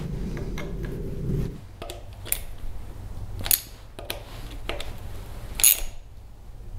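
Steel hex key and its bar handle clicking and tapping against the screws of an oiler mounting plate as the plate is tightened onto a Herbert Junior Mk2 surface grinder's casting. There are about six sharp metallic clicks, the loudest near the end.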